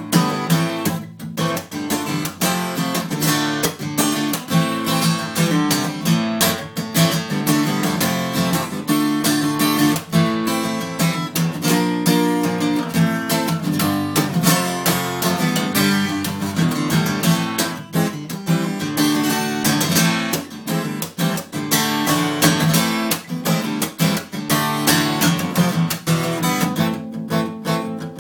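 Steel-string dreadnought acoustic guitar strummed in a steady rhythm, chords changing as it goes, with no singing over it.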